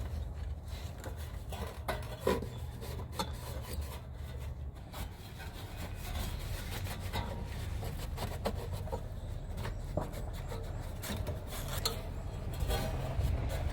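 A cloth being rubbed over a surface to clean it, with scattered small clicks and knocks of handling.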